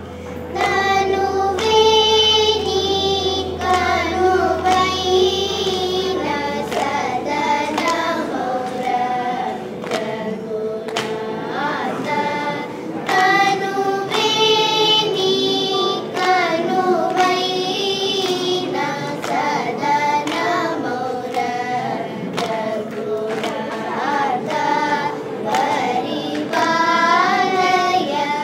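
A group of young girls singing a Carnatic song together, over the steady drone of an electronic tanpura (sruti box).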